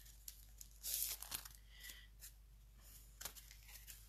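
Paper and cardstock rustling as a handmade card is picked up and handled, with a short, louder rustle about a second in and a few light taps after.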